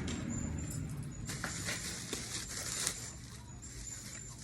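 Ring-light tripod parts being handled and fitted together: scattered light clicks and rustling, with a few sharper clicks.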